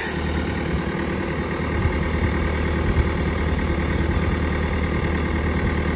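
Yanmar rice combine harvester's diesel engine idling steadily.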